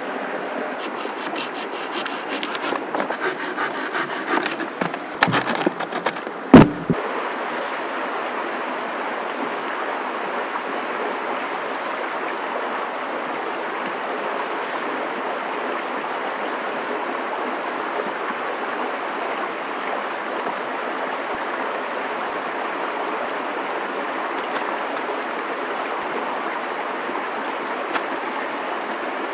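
Wooden sticks and poles being handled on a stick frame, rustling and clicking for the first several seconds, with one sharp wooden knock about six and a half seconds in. A steady rushing background noise runs underneath throughout.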